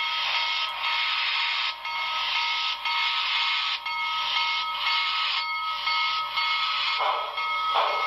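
Paragon 4 sound decoder of an HO scale NYC Hudson steam locomotive model playing rhythmic steam exhaust chuffs, about one a second, through the model's small speaker, over a faint steady whine. Near the end the chuffs come shorter and quicker.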